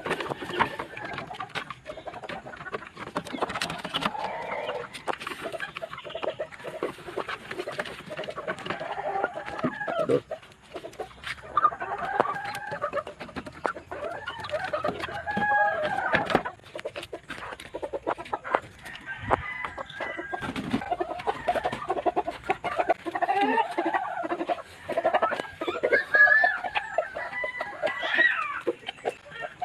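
Chickens clucking and squawking as they are handled in a wooden coop, with a rooster crowing and knocks and flapping against the coop. The loudest calls come near the end.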